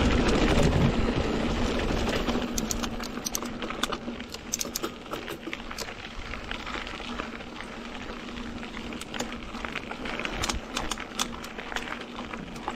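Mountain bike rolling over a dirt and gravel road: wind rushing on the microphone at first, fading after a couple of seconds, then tyre crunch with many irregular small clicks and rattles from the bike.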